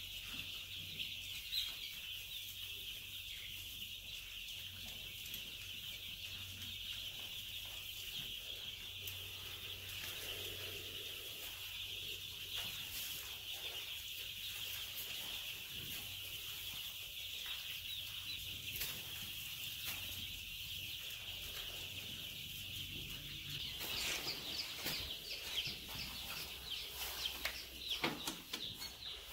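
A large flock of young Australorp and Rhode Island Red chicks peeping together in a dense, continuous high-pitched chorus over a low steady hum. Near the end, louder knocks and rustling join in.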